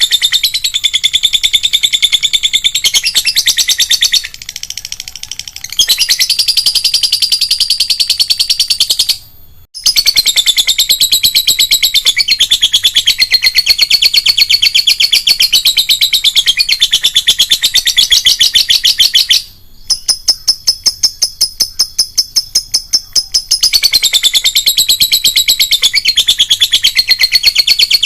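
Lovebird chattering in a long, fast run of rapid repeated high notes, the drawn-out 'ngekek' song used as a master recording for training other lovebirds. It breaks off briefly about a third of the way in and turns softer for a few seconds past the middle.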